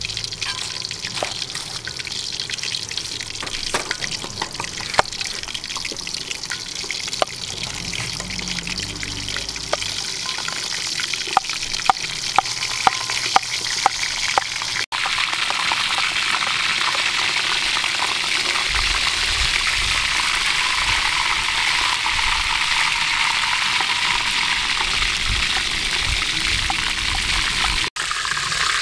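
A knife cuts through pineapple on a wooden chopping board, tapping the board about twice a second. Then, after a cut, a fish fries in hot oil in a steel wok with a steady sizzle.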